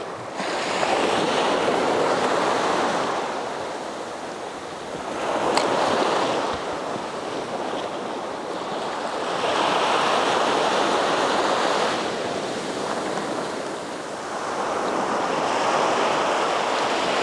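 Small ocean waves breaking and washing up the beach in the shallows, the wash swelling and easing about four times.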